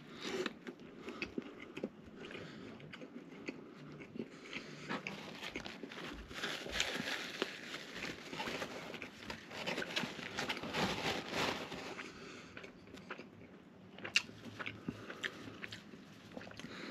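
A person bites into a Filet-O-Fish sandwich at the start, then chews the mouthful close to the microphone, with many small wet smacks and clicks.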